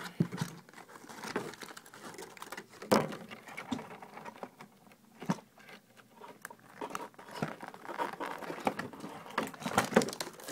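Hands working at a Mega Bloks toy set and its packaging: irregular crinkling and rustling with scattered sharp clicks and taps.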